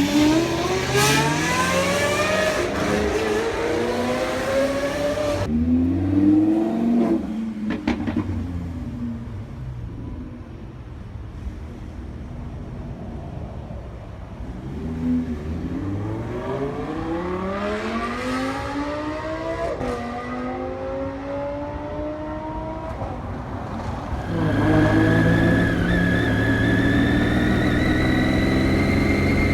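Triumph Daytona 675's inline three-cylinder engine pulling hard up through the gears, its pitch climbing and dropping back at each upshift. About five seconds in the throttle closes and the engine falls to a quieter run, then climbs through the gears again. It holds steady at high revs over the last few seconds.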